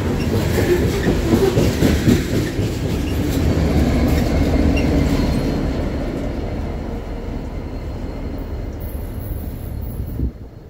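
Loaded coal hopper cars rolling past with wheels clattering over the rail. They are followed by the rear distributed-power locomotive, an EMD SD70ACe diesel, which passes running. The rumble is loudest in the first half and fades as the train moves away.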